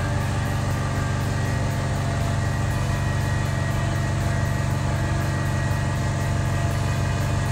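Novecel Q5 portable vacuum laminating machine running its lamination cycle, its pump giving a steady, unchanging hum.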